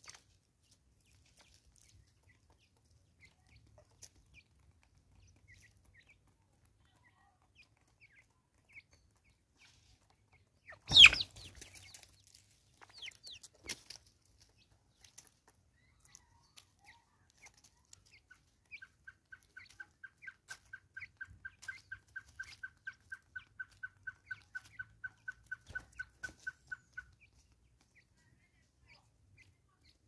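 Natal spurfowl at a feeding stump: one loud, short, harsh sound about a third of the way in, with faint scattered ticks around it. Later a bird repeats a single short note at one pitch about four times a second for some eight seconds, growing louder before stopping.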